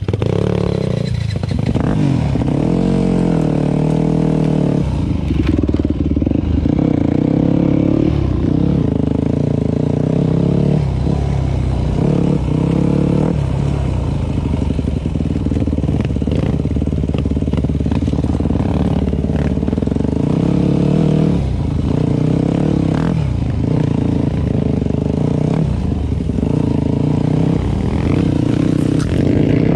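Yamaha WR 250 F dirt bike's single-cylinder four-stroke engine under way off-road, its revs rising and falling again and again as the throttle is opened and closed.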